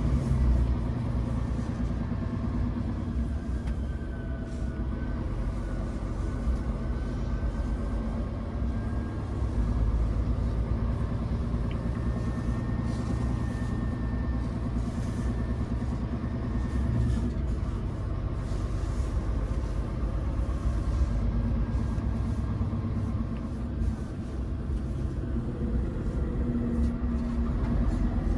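Scania P410 truck's six-cylinder diesel engine running steadily at low road speed, heard from inside the cab as a low rumble mixed with road and tyre noise.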